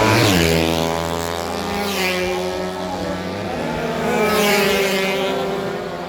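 Racing motorcycles running at high revs as they pass one after another, each pass sweeping in pitch: one just after the start, one about two seconds in and one about four and a half seconds in, with engine notes running steadily underneath.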